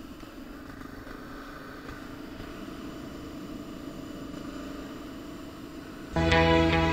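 Motorcycle riding along a road, heard from a camera mounted on the bike: a steady engine drone with road and wind rush. Loud guitar music cuts in suddenly near the end.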